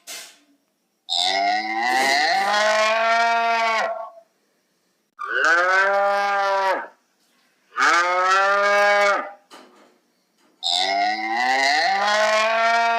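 Cow mooing: four long moos, each lasting a second and a half to three seconds, with short pauses between them.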